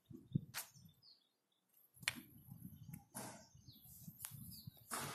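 Scattered scuffs and knocks with a low rumble, and a few faint, short bird chirps.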